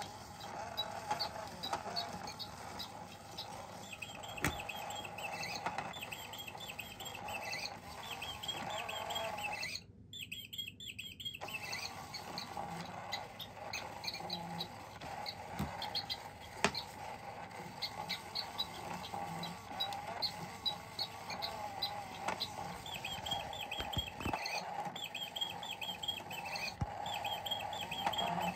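Battery-powered cat toy running: a small motor whirring steadily under strings of short electronic chirps and squeaks. Both stop for about a second and a half roughly ten seconds in, then start again.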